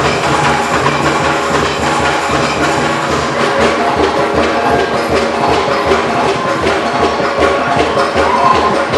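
Percussion-driven music for a tribal dance: drums and woody knocking strokes in a busy, steady beat over held tones.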